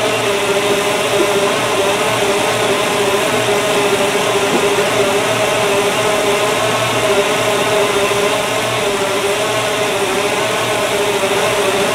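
Newly rebuilt 350 small-block Chevrolet V8 running steadily, its pitch wavering slightly, with the ignition timing set far advanced.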